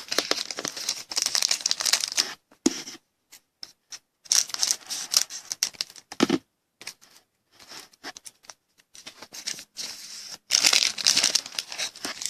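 Trading card pack wrapper being torn open and crinkled by hand, in repeated rustling bursts with short crackles between.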